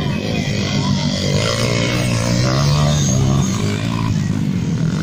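Motocross dirt bike engine running under throttle as the bike rides through the muddy track, its pitch wavering up and down and loudest around the middle.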